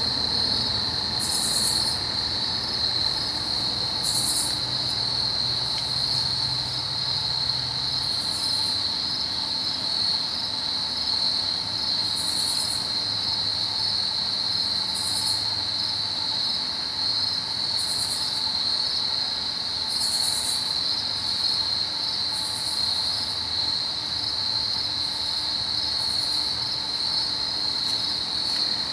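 Steady chorus of crickets trilling at one high pitch, with short higher rasps from another insect every two seconds or so. A faint low rumble underneath fades out about eight seconds in.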